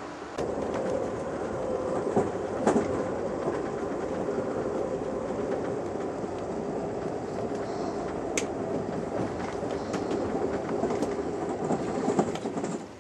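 Passenger train running on the rails, heard from inside the coach: a steady rumble of wheels on track with scattered sharp clicks. It comes in about half a second in and drops off suddenly near the end.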